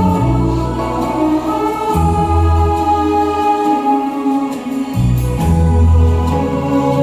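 Instrumental interlude of a Hindi film song's backing track: held chords with a choir-like pad over bass notes that change about every two to two and a half seconds.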